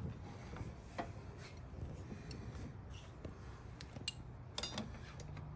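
Light metallic clinks of 13 mm wrenches on a sway-bar end-link bolt as it is held and loosened: one click about a second in and a few more near the end, over a faint low hum.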